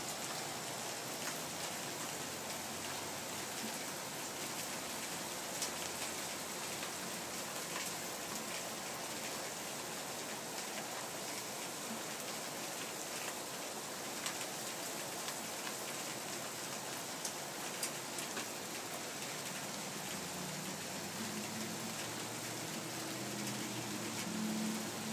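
Steady rain falling on pavement and trees, an even hiss with occasional sharper drip taps. A low hum builds near the end.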